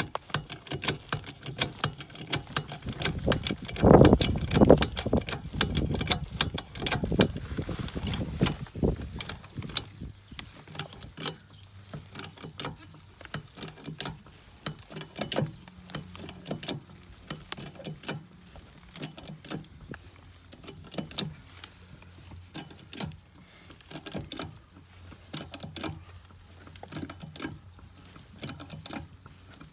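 Rapid, irregular clicking and rattling from a jack being worked to lift a mobile home at a pier. A heavy low rumble runs from about four to nine seconds in, and a faint steady low hum sits underneath later.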